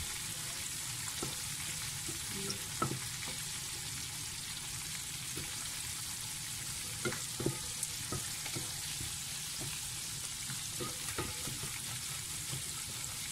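Butter-and-flour roux sizzling steadily in a hot metal pan as it is stirred with a spatula, which scrapes the pan bottom now and then. The roux is being cooked toward golden brown as the base for gravy.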